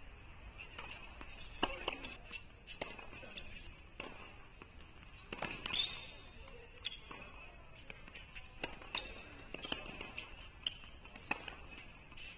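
Tennis balls struck by racquets and bouncing on a hard court during a rally, with players' shoes on the court, heard as irregular sharp knocks and pops. A steady high tone runs underneath.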